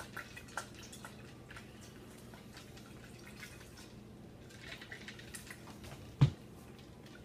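Faint scattered drips and small clicks of liquid and utensils, with one thump about six seconds in, over a low steady hum.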